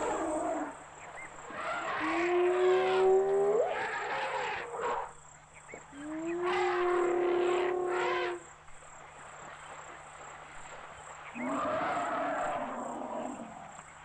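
Wild animals calling: two long calls held at a steady pitch, the first ending in a sharp upward glide. About eleven seconds in comes a rougher, hoarser call.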